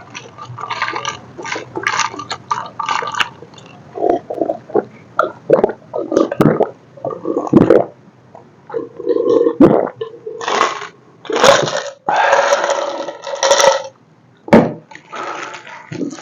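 Close-miked drinking mouth sounds: a string of short sips, slurps and gulping swallows of orange soda, one after another, with a short pause near the end.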